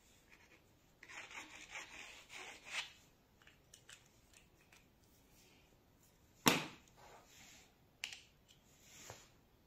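Gel pen strokes scratching on paper for about two seconds, followed by a sharp click, the loudest sound, and a smaller click about a second and a half later, then a short rub.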